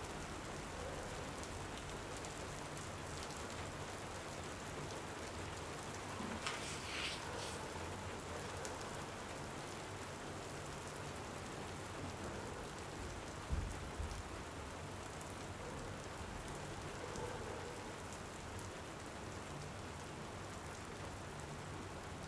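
Steady rain falling. About a third of the way in there is a brief rustle, and a little past halfway come two short low thumps close together.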